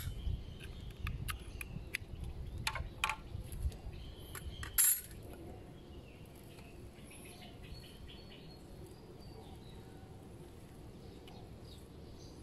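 A few sharp clicks and knocks in the first half, the loudest about five seconds in, from a utility knife and a plastic sprouting tray being handled; then only a low steady background.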